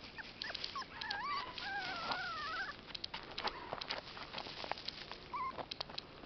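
Morkie puppy whimpering in high, wavering whines during the first few seconds, over a run of crunching footsteps on gravel.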